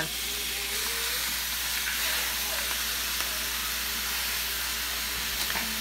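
Raw ground beef sizzling steadily in a hot frying pan as it is laid in by hand.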